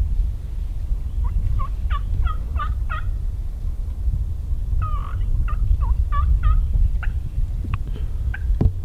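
Wild turkey gobbling twice: a rapid rattling run of notes about a second in, and another near the middle. A steady low rumble runs underneath, and a few sharp clicks come near the end.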